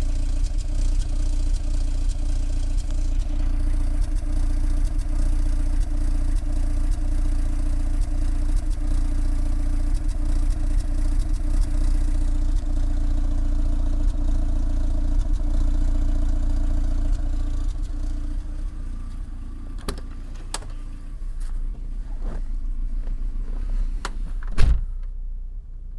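Peugeot 306 GTi-6's four-cylinder engine running rough with a misfire, its low exhaust pulse uneven. The engine sound drops off after about eighteen seconds, and a few sharp clicks follow, then one loud thump near the end.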